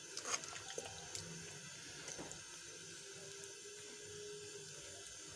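Faint sloshing of milk with grated carrots and rice being stirred with a metal spoon in a large cooking pot, with a few light knocks in the first couple of seconds.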